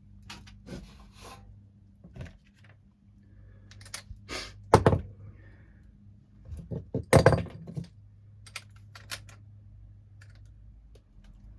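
Metal tools and hardware being handled: scattered clinks and knocks, two louder ones about 5 and 7 seconds in, over a steady low hum.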